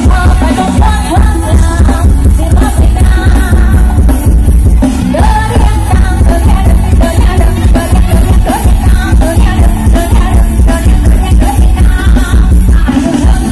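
Loud Thai dance music blasting from a rot hae parade sound-system truck, with heavy pounding bass, a fast steady beat and a singer's voice over it.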